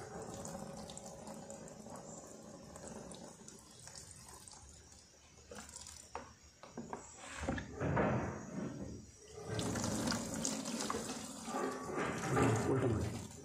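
Water splashing and sloshing in a plastic tub as a silver ornament is rinsed and wiped by hand, coming in uneven bursts that grow louder in the second half.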